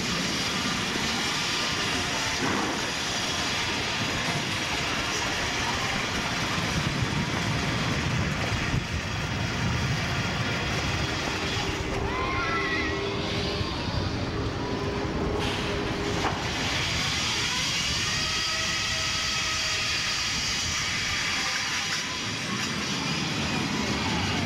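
Steady rushing noise of wind and ride machinery on a camcorder's built-in microphone while riding amusement-park rides, with faint wavering tones about halfway through and again later on.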